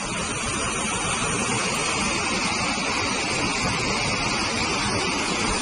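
A steady, loud rushing noise that cuts off suddenly near the end.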